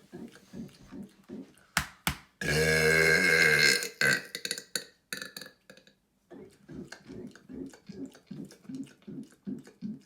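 A man's loud, long burp of about a second and a half, starting about two and a half seconds in, just after two sharp clicks. Before and after it come short rhythmic throat sounds, about three a second.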